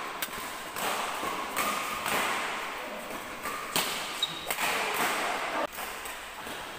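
Badminton rally: rackets striking the shuttlecock back and forth, with sharp hits roughly a second apart, each echoing briefly in a large hall.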